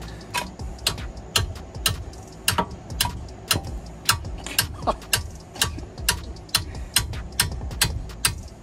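Steady hammer blows, metal on metal, about two a second, struck at the rear suspension of a Honda/Acura Integra to break loose a seized coilover.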